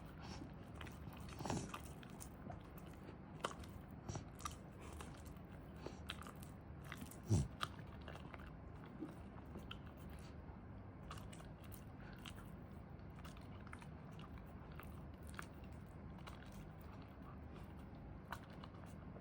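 Shiba Inu chewing and biting on food, with soft crunches and small clicks scattered throughout. A brief louder low sound, falling in pitch, comes about seven seconds in.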